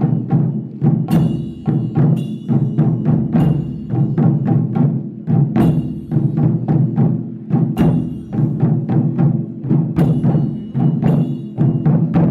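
Japanese taiko drum ensemble playing a fast, driving rhythm of dense, heavy strikes, with bright ringing accents cutting in every second or two.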